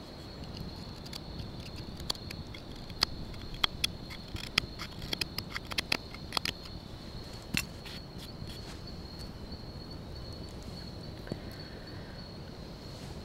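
Knife carving a wooden spoon: a run of short, irregular cutting clicks and scrapes between about two and eight seconds in. Under it runs a steady, high insect trill of the night forest.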